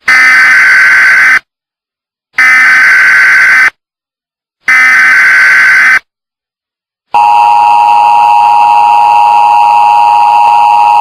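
Loud Emergency Alert System tones: three bursts of SAME header data, each a harsh digital buzz about a second and a half long with short gaps between. Then, about seven seconds in, the steady two-tone attention signal begins.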